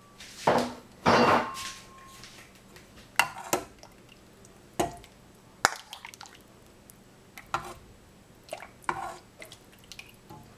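Metal ladle scooping soup from a stainless steel saucepan and pouring it into a ceramic bowl: a series of separate clinks of metal on pot and bowl, with splashes and drips of broth. The loudest clinks come in the first second and a half, one of them leaving a brief ringing tone.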